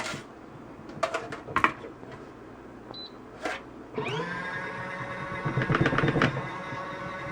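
A few clicks and knocks, then about four seconds in the spin motor of a small folding portable washing machine starts and runs with a steady hum, rattling for a moment about six seconds in.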